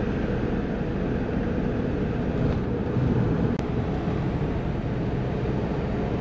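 Steady road and engine noise of a car driving at about 100 km/h, heard from inside the cabin, with one faint click about three and a half seconds in.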